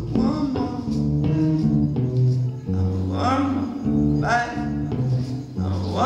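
A man singing into a microphone while playing an acoustic guitar. Short sung phrases come over continuous guitar chords and bass notes.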